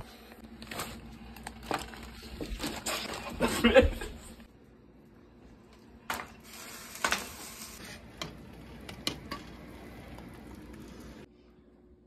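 Handling noise in a kitchen: knocks, rustling and clicks as the phone and kitchen things are moved about, busiest in the first four seconds, then a few scattered clicks.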